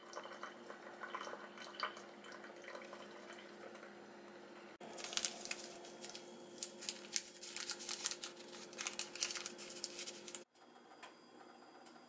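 Single-serve coffee maker brewing, a steady hum with coffee streaming into a mug. About five seconds in it gives way to a paper sweetener packet crinkling and its granules pouring into the coffee, a run of sharp crackles, which stops suddenly near the end, leaving faint room tone.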